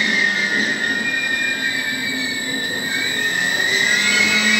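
Vivalto double-deck coaches of a regional train rolling past along the platform, with a high, steady squeal from the wheels that slides up and down in pitch over the rumble of the running gear.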